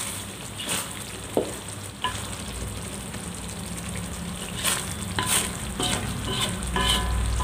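Thick curry gravy sizzling in a wok while a spatula stirs and scrapes through it, with short scrapes against the pan every second or so. The gravy is being fried until the oil separates from it.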